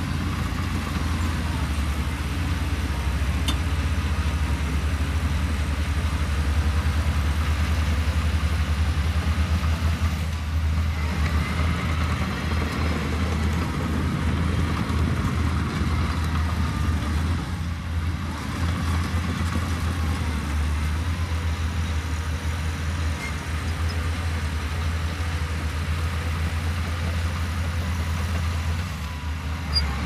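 Diesel engine of a heavy earthmoving machine running steadily, a low drone that barely changes in loudness.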